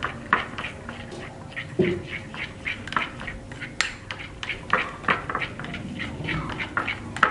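Metal teaspoon stirring thick white batter in a small glass bowl, clinking and scraping against the glass about three or four strokes a second.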